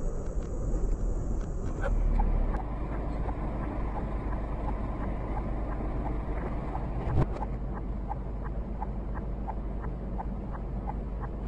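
Steady engine and road rumble inside the camera vehicle's cab, swelling louder for a moment about two seconds in. A single sharp knock comes about seven seconds in, and faint regular ticking runs about twice a second in the later part.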